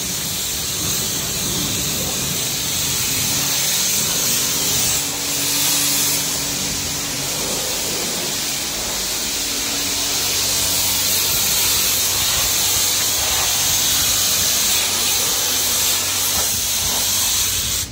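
Self-service car wash pressure-washer lance spraying water onto a car: a steady hissing spray, dipping briefly about five seconds in, with a low steady hum underneath.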